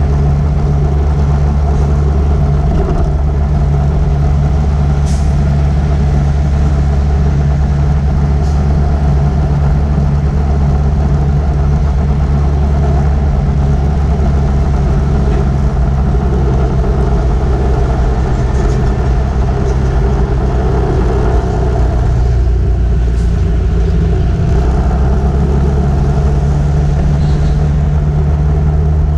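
Steady running noise from a moving road vehicle, with engine and road rumble and no change in pace.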